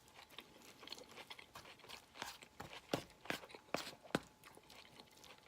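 A person chewing food close to the microphone, with a scattering of sharp, wet mouth clicks, the loudest a little over halfway through.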